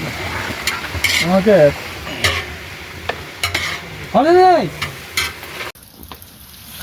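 Food stirred in a hot pan: a frying sizzle with the scrape and click of a spoon against the pan. Two short pitched calls come through, about a second in and about four seconds in. The sound drops off sharply near the end.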